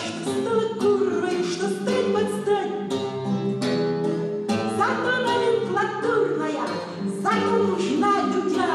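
A woman singing to her own strummed classical guitar.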